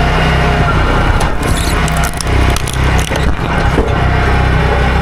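Chainsaw running under load while cutting into wood, with scraping and chip-tearing noise over the steady engine sound in the middle seconds.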